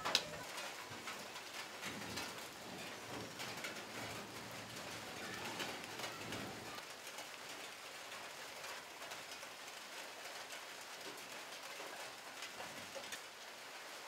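Light rain pattering on leaves and on a pond surface, with drops ticking as they fall from foliage as the shower tapers off. A dove coos in the background.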